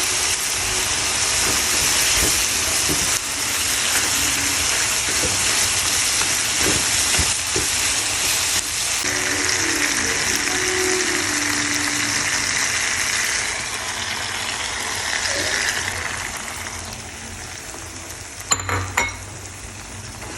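Food sizzling in a frying pan, a steady hiss that dies down in the last few seconds, with a few sharp clinks near the end.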